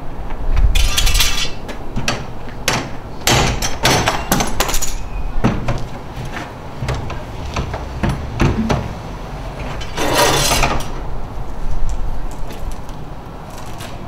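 Hands working at a garage door: a run of knocks and clanks, with two longer bursts of rough scraping, about a second in and about ten seconds in.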